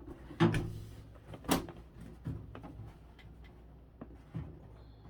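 Clunks and clicks of tools and the metal casing being handled while a microwave is taken apart: a sharp clunk about half a second in, another about a second later, then several lighter clicks.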